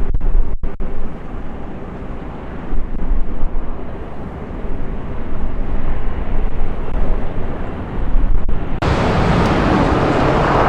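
Jet airliner engines rumbling during a takeoff, with wind buffeting the microphone. About nine seconds in, the sound switches suddenly to a louder, brighter jet roar.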